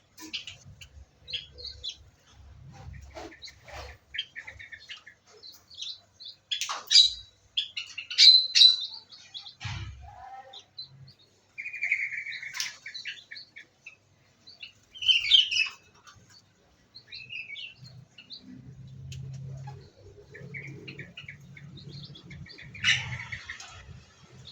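Small aviary birds chirping and tweeting in short, scattered calls, with a few louder calls among them. A faint low hum joins in the last few seconds.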